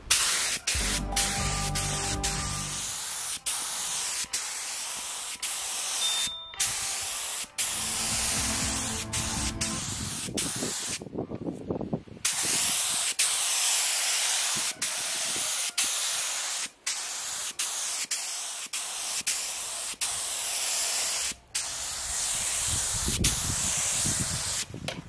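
Spray gun hissing as it sprays a finish onto an oak-and-resin clock face, in long passes broken by brief stops when the trigger is let go, with a longer pause about eleven seconds in.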